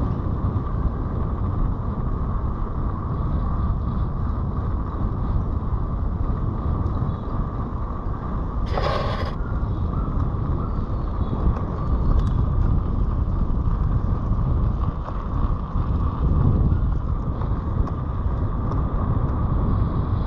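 Wind buffeting a helmet-mounted microphone as a mountain bike rolls down a gravel road, with steady tyre noise. There is a brief, sharp, higher-pitched sound about nine seconds in.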